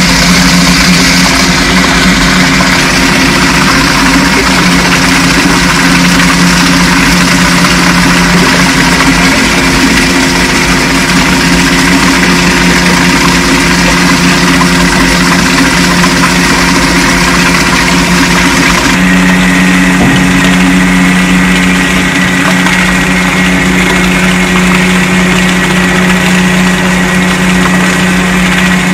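Paper pulper's rotor running steadily, churning and breaking up paper pulp at 12% consistency, with a steady motor hum under a hiss. About two-thirds of the way through the hiss thins and the hum grows stronger.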